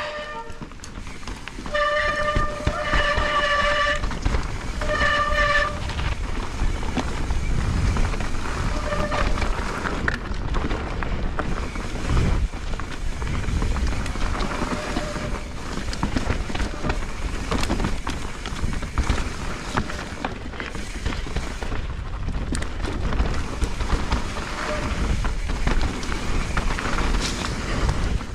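Mountain bike descending a wet, muddy trail: a constant rumble and rattle of tyres and bike over the ground. Wet disc brakes howl in a steady pitched squeal in spurts about two to six seconds in, and briefly a few more times later.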